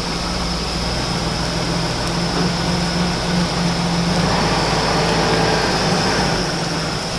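BMW E36's M52 inline-six engine idling steadily as the car creeps slowly forward, running evenly on a freshly rebuilt VANOS.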